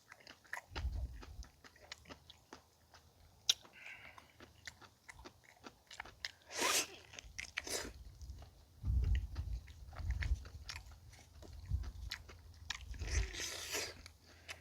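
Close-miked eating of boiled pig's trotters: wet chewing, biting and lip smacks with many small clicks, and a few louder noisy bursts in the middle and near the end.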